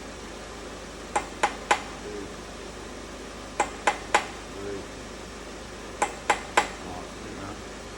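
Sharp metallic taps on an engine part under strip-down, in sets of three about a quarter second apart, each set repeating about every two and a half seconds, over a steady workshop hiss.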